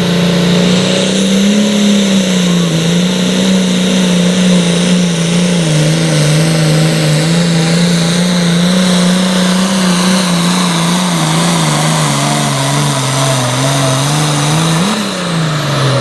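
Turbocharged diesel engine of a super farm pulling tractor running steadily above idle, its pitch wandering a little. About fifteen seconds in it gives a short rev, then falls away.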